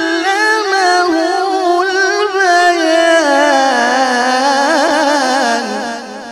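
A man's voice reciting the Quran in melodic tajwid style, holding one long ornamented phrase with fast quavering runs. The melody slides lower from about halfway and fades out near the end.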